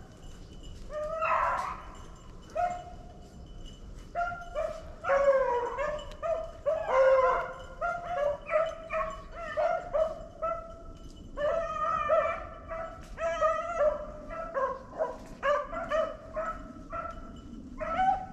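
A pack of beagles baying on a rabbit's trail: many short, overlapping barks from several dogs, coming in quick runs.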